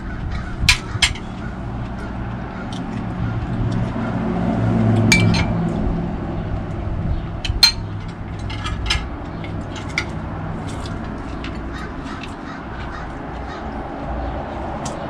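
A steady low background rumble, swelling for a couple of seconds partway through, with scattered light clicks and clinks of utensils and dishes being handled.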